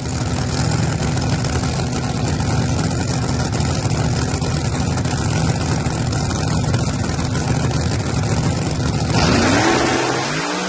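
Pro Boost drag car engine idling loud and steady at the starting line, then rising in pitch as it revs up about nine seconds in.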